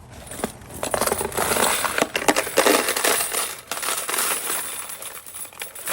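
Loose metal key blanks clattering and jingling against one another as a batch is tipped into a storage container, a dense run of small clinks lasting a few seconds.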